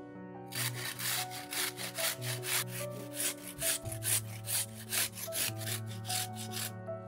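A garlic clove rubbed up and down a small stainless-steel hand grater, making rhythmic rasping strokes about three a second, with soft background music.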